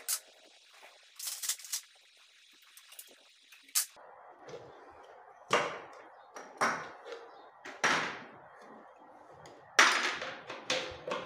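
Short metallic clicks and knocks of an L-spanner working on the carburettor mounting nuts of a Honda CD70 motorcycle while the carburettor is taken off, louder in the second half.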